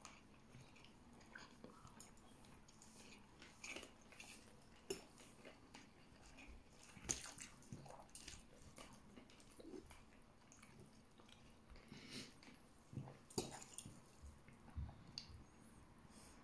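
Faint eating sounds: sporadic chewing and small wet clicks and squishes as fingers mix and pick up rice and chicken adobo from a plate, with a few sharper clicks now and then.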